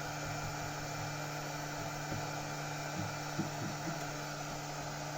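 Steady electrical mains hum over a constant background hiss, with a few faint small sounds in the middle and no distinct event.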